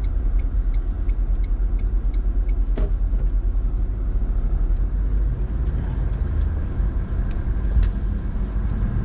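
Cabin noise of a Toyota LandCruiser 70 series on the move: steady low engine and road rumble.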